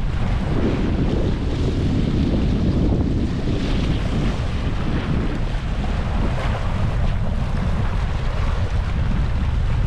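Strong wind blowing over the microphone: a steady, loud low rumble of wind noise.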